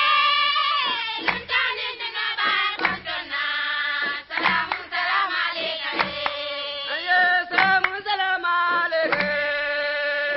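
Traditional Mandinka song: voices singing, some notes held long, over drum strokes.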